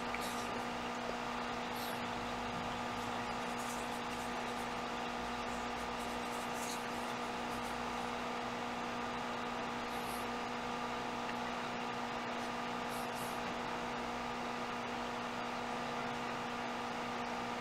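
Steady electrical hum with a hiss underneath: room tone, with a few faint, short high hisses now and then.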